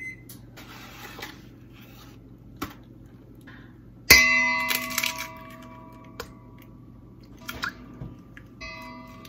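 An egg rapped hard on the rim of a stainless steel mixing bowl about four seconds in, the bowl ringing with several clear tones that fade over a couple of seconds; a lighter knock near the end sets it ringing again.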